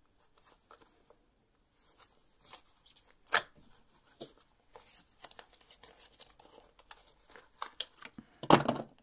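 Small clicks and scrapes of a hand tool prying at a makeup product's packaging box, with one sharp click about three seconds in and a louder tearing of the packaging near the end.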